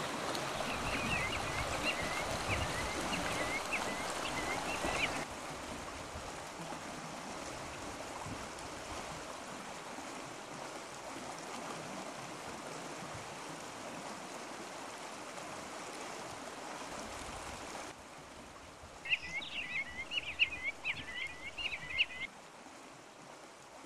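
Steady sound of flowing water, with a bird calling in short repeated chirps over the first five seconds and again, louder, from about 19 to 22 seconds in.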